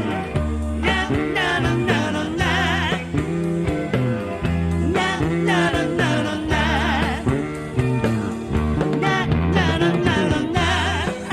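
Live Japanese rock band music played back from a cassette recording: steady bass and drums under a high lead melody line with heavy vibrato.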